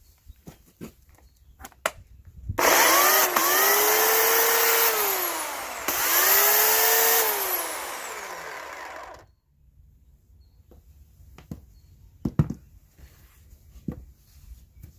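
Oregon CS1500 15-amp corded electric chainsaw run without load in two short trigger pulls: the motor whines up to speed, dips and spins up again, then winds down to a stop. Small handling clicks before and after.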